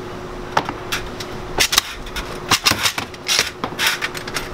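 Hard candy pieces and metal bars of a candy-cutting machine knocking and clattering, about a dozen sharp clacks in uneven clusters, over a steady faint hum.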